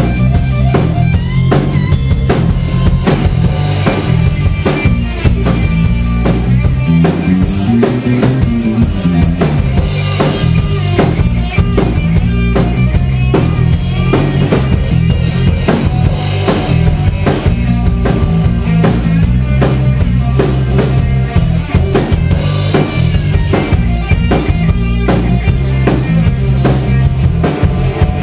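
Live rock band playing loud and without vocals: electric guitar lead over bass guitar and a pounding drum kit, with one note swooping up and back down about eight seconds in.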